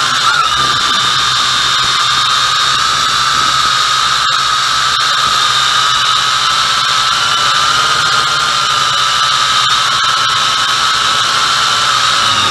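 MJX X101 quadcopter's motors and propellers running in flight, heard close up through a camera mounted on the drone: a steady high whine over a rush of noise, with a brief lift in pitch just after the start.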